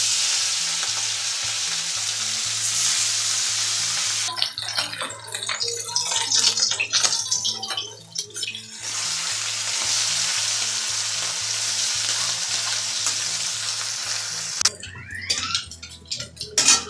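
Small puti fish frying in hot soybean oil in a steel kadai: a loud steady sizzle as they go in. From about 4 to 9 seconds it is broken by the scrapes and knocks of a metal spatula turning the fish, then it sizzles again. Near the end the sizzle stops abruptly, giving way to scattered clinks and scrapes.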